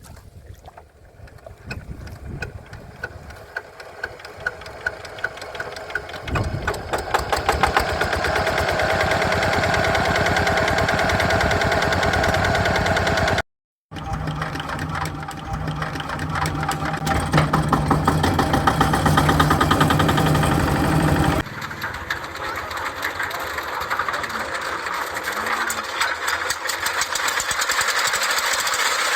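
Hand-cranked small diesel engine catching: separate knocks that quicken over the first few seconds, then running fast and steady. After two abrupt cuts, other diesel engines running steadily.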